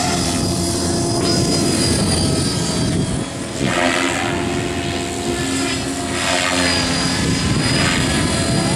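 Align T-Rex 600 EFL Pro electric RC helicopter in flight: a steady hum of rotor blades and electric motor. The blade sound swells and sweeps in pitch twice, about three and a half and six seconds in, as it manoeuvres.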